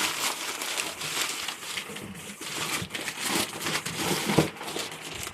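Packaging crinkling and rustling as an item is unwrapped by hand, with many small crackles throughout.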